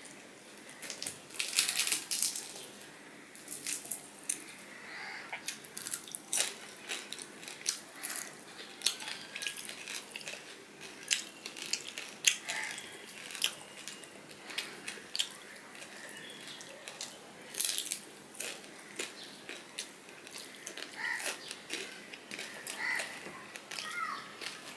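Close-miked eating sounds of a person eating fried hilsa fish and rice by hand: chewing, wet lip smacks and small clicks from picking at the fish, coming in quick irregular bursts.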